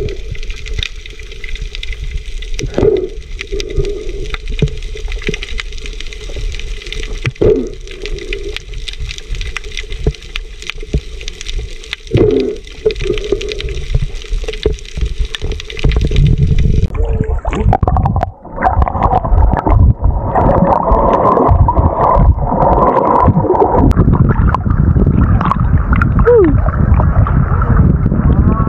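Muffled underwater noise picked up by a submerged camera, with gurgling and a few knocks. About two-thirds of the way through it changes abruptly to louder sloshing and splashing of water at the surface among swimmers.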